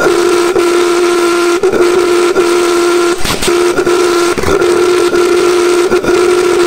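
Small Tesla-valve pulse jet engine running with a loud, steady high-pitched buzzing drone. It falters briefly twice, a little past the middle.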